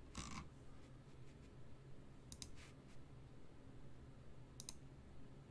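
Near silence: a low steady hum with a few faint clicks, coming in two quick pairs, about two and a half seconds in and again near the end.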